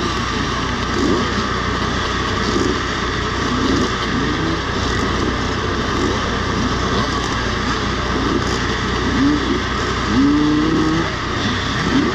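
A pack of vintage two-stroke motocross bikes running together on the start line, riders blipping their throttles so that many engines rev up and drop back over and over.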